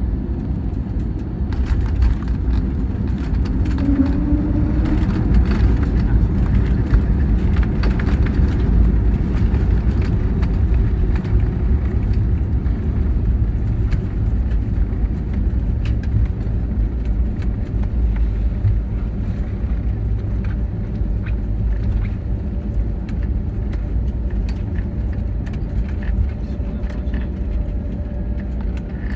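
Cabin noise of an Airbus A320neo rolling on the ground: a steady low rumble from the wheels and engines, with scattered knocks from the landing gear, swelling a little in the first few seconds and easing off later.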